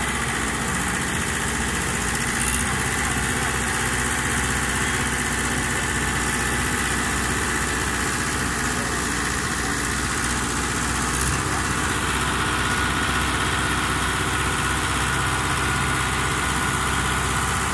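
Güldner G45a tractor's diesel engine running steadily while it pulls a larger tractor on a tow hitch.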